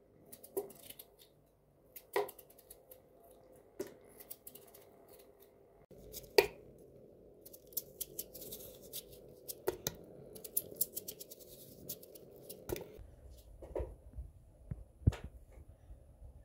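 Knife slicing a raw potato held in the hand, with crisp cutting sounds and a sharp click every one to three seconds as each slice comes off and drops into a metal pot; the loudest click comes about six seconds in.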